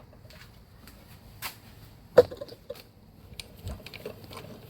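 Scattered small clicks and light knocks of objects being handled, with one sharper knock about two seconds in.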